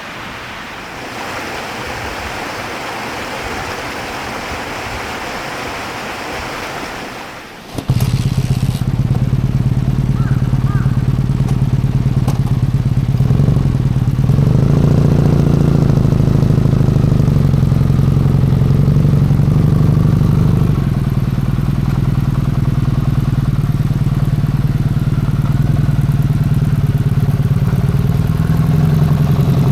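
A steady hiss, then about eight seconds in a Kawasaki W650 motorcycle's air-cooled parallel-twin engine starts suddenly and idles steadily.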